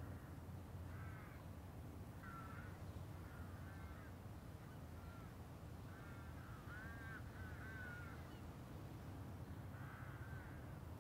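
Crows cawing, a scattered series of short calls that bunch together about six to eight seconds in, over a faint low steady rumble.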